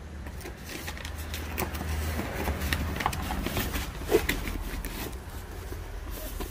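Firework packages and boxes being handled, giving scattered light knocks and rustles over a steady low rumble.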